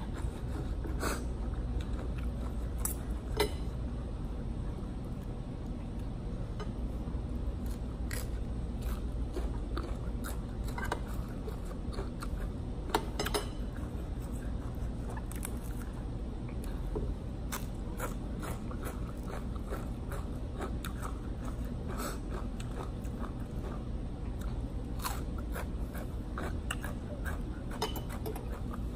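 A person chewing and crunching a mouthful of shredded cucumber salad with noodles, with scattered short clicks of a metal fork and spoon against the plate, over a steady low hum.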